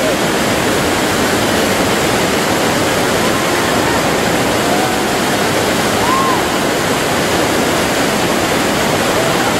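White-water river rapids rushing: a loud, steady noise of churning water.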